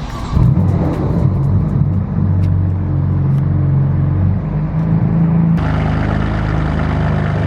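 The BMW M4 F82's twin-turbo inline-six, fitted with a straight-piped AWE track exhaust, running loudly at a steady idle. It comes in sharply just after the start, and its character broadens about five and a half seconds in.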